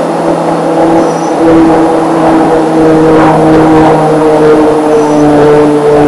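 Propeller aircraft flying over, a loud steady drone with its pitch drifting slightly, growing louder about a second and a half in. A bird chirps briefly near the end.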